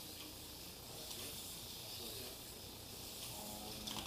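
Steady faint high hiss, with faint voices near the end.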